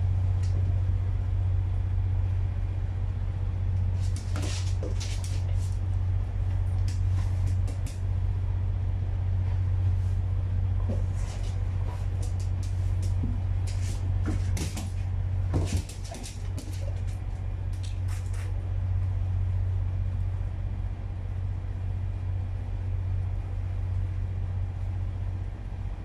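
A steady low hum, with scattered light clicks and scratching from a dog's claws on a hard floor and its pawing at a plush dog bed, which die away in the last third as the dog settles.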